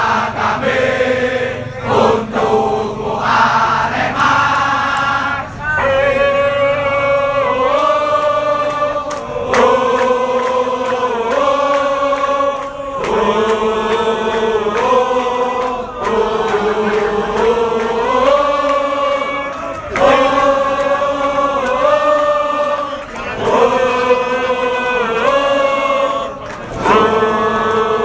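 A large crowd of football supporters singing a chant together in unison, loud and steady, the melody moving in phrases of about two seconds that repeat.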